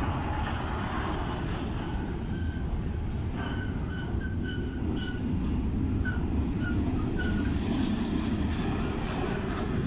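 Double-stack container freight train rolling past close by: a steady rumble of wheels on rail, with a run of short, high wheel squeals for a few seconds in the middle.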